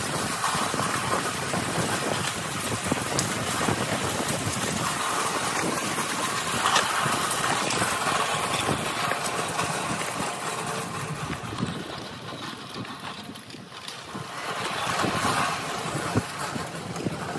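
Steel-mesh utility wagons rolling over cracked asphalt: wheels rumbling on the rough surface and the metal frames rattling with many small knocks. It goes quieter for a couple of seconds past the middle, then picks up again.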